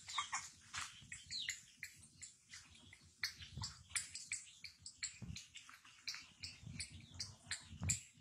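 A puppy and a baby monkey scuffling on gravel: many quick scrapes and clicks, with a few short high squeaks near the start.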